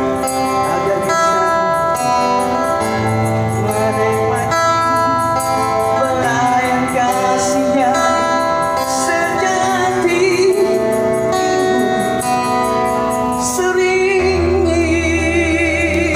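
A singer performing a Malay pop ballad live over band accompaniment with a low bass line, ending on a long held note with vibrato near the end.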